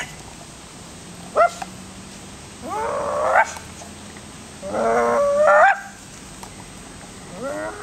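French bulldog puppy, twelve weeks old, vocalizing: a short rising yelp, then two drawn-out, bending bark-howls about a second long each, and the start of another near the end.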